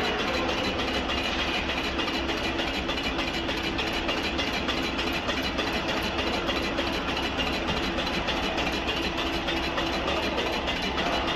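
Large CNC wood lathe running steadily while turning a large-diameter log, a constant machine hum under a hissing cutting noise.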